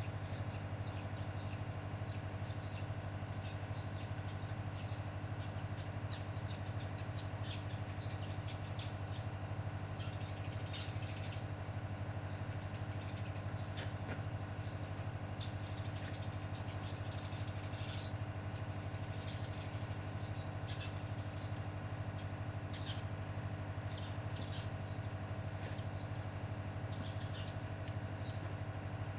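Many short bird chirps over a steady, even low machine hum, with a faint steady high whine.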